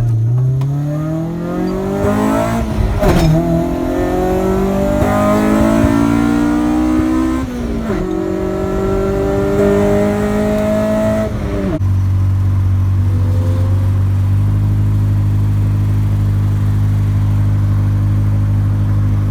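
Honda EK9 Civic Type R's B16B four-cylinder engine accelerating hard through the gears: its pitch climbs steadily three times, dropping sharply at each upshift. About twelve seconds in, the rising stops and a steady, unchanging drone takes over.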